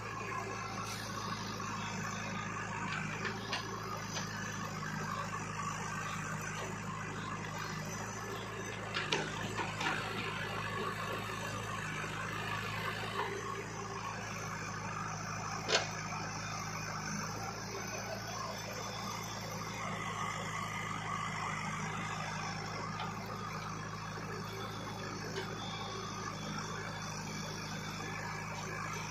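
Diesel engine of a JCB backhoe loader running steadily as its backhoe digs earth out of a truck bed. A few sharp knocks stand out, the loudest about sixteen seconds in.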